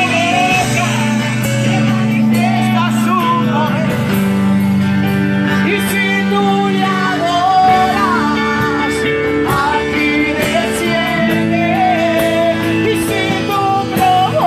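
Live gospel praise music: singing amplified through microphones over instrumental accompaniment with long held chords.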